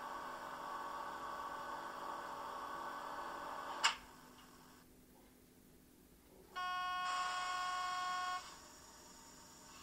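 Model train sound decoder in a Roco H0 BR 628.4 diesel railcar playing its passenger-compartment preheater sound, a steady hum, which ends with a sharp click about four seconds in. After a short pause the PZB train-protection cab tone sounds once, a steady pitched beep of nearly two seconds.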